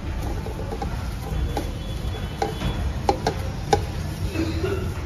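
A handful of short, sharp light clicks and clinks, about five, bunched in the middle, over a steady low hum of room noise.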